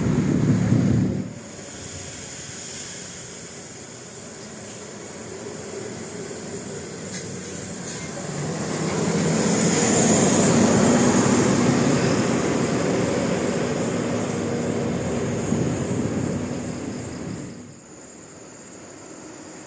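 Large road vehicle passing close by: engine and tyre noise swelling to a peak about ten seconds in, then fading away. A louder passing sound cuts off about a second in.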